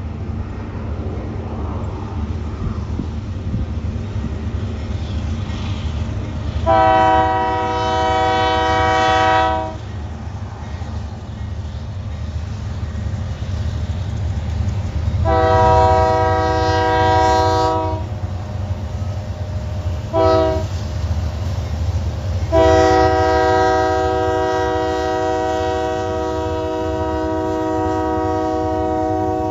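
Union Pacific diesel freight locomotive's multi-chime air horn sounding long, long, short, long, the last blast held on, which is the grade-crossing warning signal. Under it runs the steady low rumble of the passing locomotives and train.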